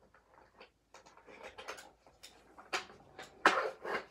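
Small plastic parts of a toy camper being handled: an irregular run of light clicks, taps and rustles, with a sharper knock about three and a half seconds in.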